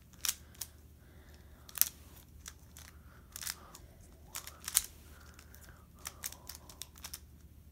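Magnetic X-Man Bell Pyraminx being turned by hand during a speedsolve: quick, irregular plastic clicks and clacks as the layers snap round, with a few short pauses.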